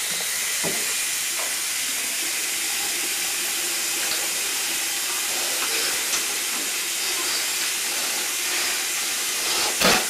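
Bathroom sink tap running steadily into the basin, an even hiss of water that starts abruptly, with a few faint clicks.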